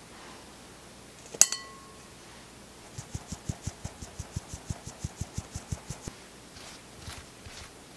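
A single sharp clink on a glass mixing bowl that rings briefly, then a flour sieve tapped rapidly and evenly, about six or seven soft taps a second for some three seconds, as cake flour is sifted into the bowl with a dry patter.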